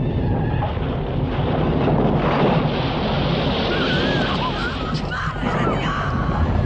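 Film sound effects of an earthquake: a loud, dense, continuous rumble with crashing and falling debris. Wavering cries and screams of people rise over it about halfway through.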